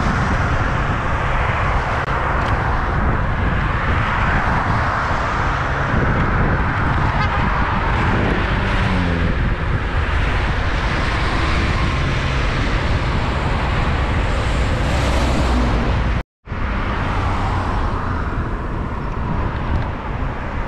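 Steady highway traffic noise of passing cars and trucks, heard from a moving bicycle, with a dense low rumble of wind on the microphone. The sound drops out for a moment about sixteen seconds in, then carries on the same.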